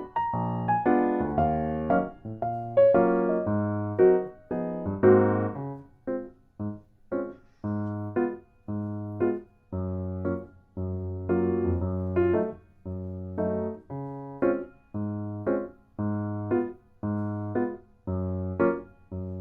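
Background music on a piano-like keyboard: a light tune of short, evenly spaced chords over a low bass note, with longer, denser notes in the first few seconds.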